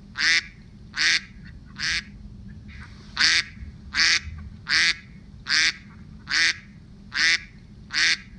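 Duck quacking, about ten short nasal quacks at a steady pace, with one longer pause about two seconds in.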